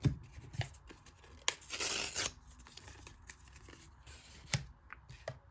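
A Pokémon trading card being torn: one short rough tear about two seconds in, among a few sharp taps and rustles of cards handled.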